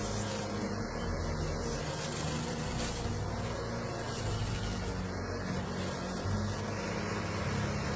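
Heavy machinery engine running steadily: a continuous low drone with a constant hiss over it.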